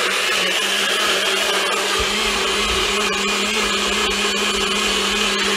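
NutriBullet blender motor running steadily at full speed, blending a thick purée of butternut squash and coconut milk; a deeper rumble joins about two seconds in.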